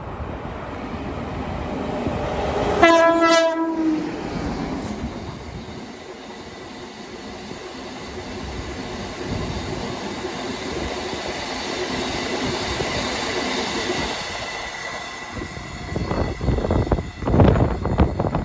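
Freight train running through a station: the locomotive sounds its horn once, for about a second, about three seconds in. Then the rumble and rolling of a long rake of loaded-style box wagons passing close by continues, growing into louder low clattering and thumping near the end.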